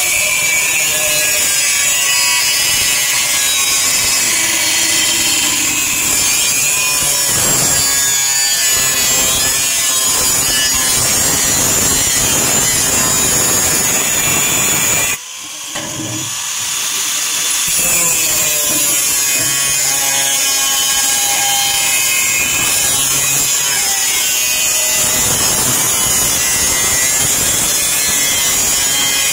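A power tool cutting a sheet-metal cable tray, running steadily. About halfway through it stops briefly, then spins back up and carries on cutting.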